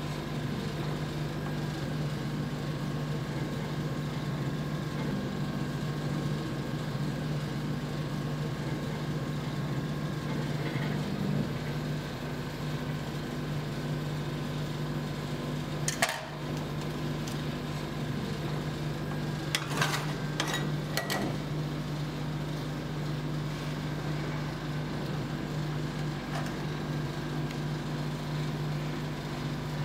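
Steady machine hum of the rolled ice cream cold plate's refrigeration unit. A few sharp clicks break in, once about sixteen seconds in and several around twenty seconds in.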